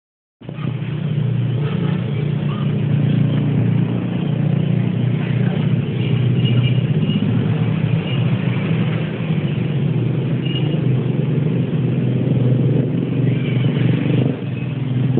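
Loud, steady low rumbling drone with a few faint short high tones over it. It is the kind of sound posted as a mysterious 'strange sound from heaven' in the sky.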